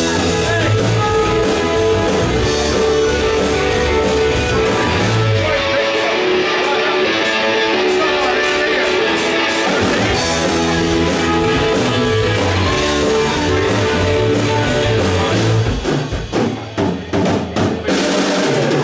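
Live rock band playing an instrumental passage on electric guitars, bass, keyboard and drum kit. Near the end the band breaks into a run of short stop-time hits with brief gaps between them.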